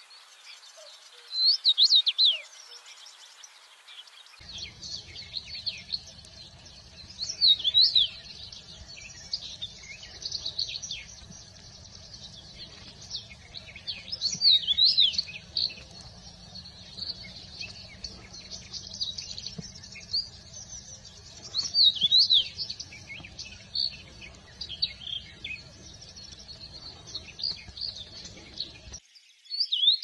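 Common rosefinch song: short, loud whistled phrases repeated about every six or seven seconds, with fainter chirping between them. From a few seconds in until near the end, a low steady rumble of background noise lies under the song.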